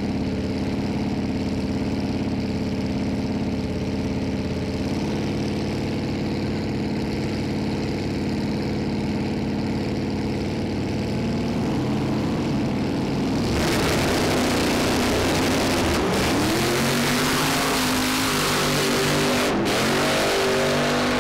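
Two drag-race cars' big engines idling on the starting line, revving about twelve seconds in. Then both launch hard at once, a sudden much louder blast of engine and tyre noise. The engines climb in pitch through the gears as the cars pull away, with two brief breaks in the sound.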